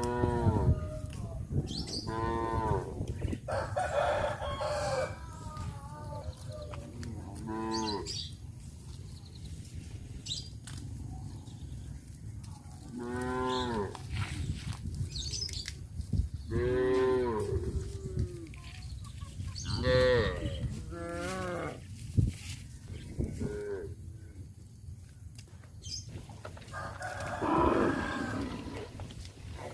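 Cattle mooing, about eight separate drawn-out calls spread throughout, over a steady low rumble.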